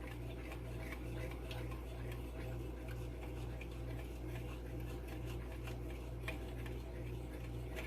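A fork stirring beaten eggs in a bowl, giving faint, irregular light clicks against the bowl over a steady low hum.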